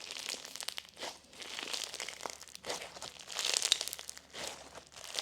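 Freshly reactivated clear slime being stretched and squished by hand, giving dense, irregular crackles and small pops as air pockets in it burst.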